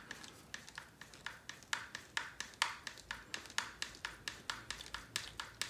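Hand hex driver tightening a screw into the plastic chassis of an RC car: a string of light, irregular clicks, a few a second.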